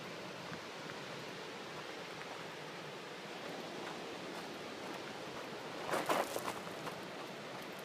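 Steady hiss of distant surf and wind. About six seconds in, a brief burst of crunching as shoes scuff and slide on loose gravel.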